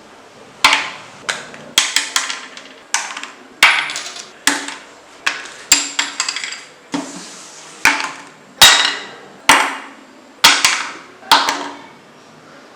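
A series of about fifteen sharp knocks or strikes at irregular intervals of roughly half a second to a second, each ringing briefly before fading.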